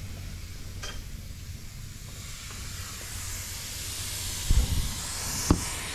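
Compressed air hissing steadily out of a truck's air-ride suspension bags as they are deflated, starting about two seconds in and growing louder. A low thump and a sharp knock come near the end.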